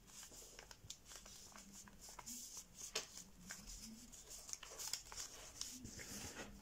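Sheet of 80 g/m² printer paper being folded and creased by hand, with faint scattered rustles and crackles as the layers are pressed flat.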